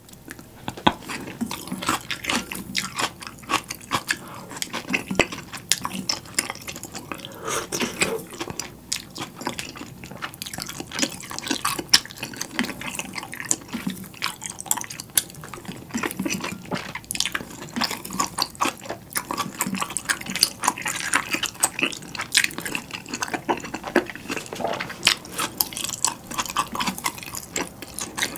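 Close-miked eating sounds: wooden chopsticks picking through a ceramic bowl of milky beef-bone ramyeon broth, broth dripping off lifted green onions, and wet chewing, as a string of small clicks and crackles.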